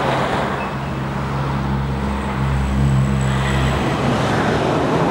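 Road traffic noise: a motor vehicle's engine hum under a steady rush of passing-traffic noise, the hum loudest from about two to four seconds in.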